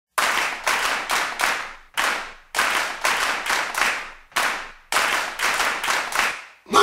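Many hands clapping in unison in a steady rhythm: four claps, a pause, one clap, and the pattern repeats. Each clap rings out briefly before the next.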